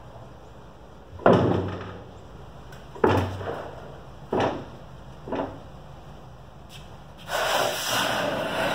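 Manual sheet-metal brake handled after a bend: four sharp metal clanks, each fainter than the last, as the bending leaf and clamp are let down and released. Near the end, the bent sheet scrapes and rubs as it is slid out of the clamp jaws.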